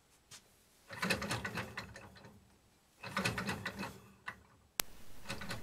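Home-built four-bar-link Stirling engine turned over by hand as a compression check at atmospheric pressure: two bursts of rapid mechanical clicking and whirring from the drive, each about a second long, then a single sharp click near the end.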